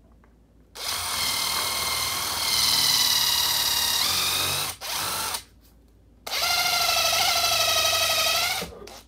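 Electric drill running in three bursts: a run of about four seconds whose whine drops in pitch near its end, a short blip, then another run of about two and a half seconds.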